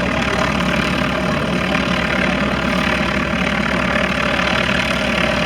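Van's RV-4 light aircraft's piston engine and propeller running steadily as it departs.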